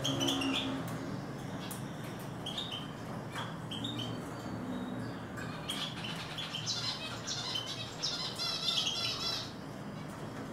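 Eurasian siskins giving short, high chirping calls again and again, with a run of quick twittering notes about six to nine seconds in.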